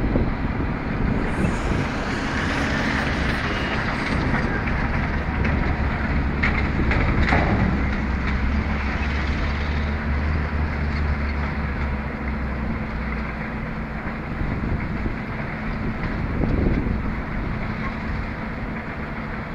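Diesel engine of a truck-mounted telescopic crane running steadily while hoisting a steel girder, its low hum heavier through the middle and easing off later, with a couple of sharp knocks about seven seconds in.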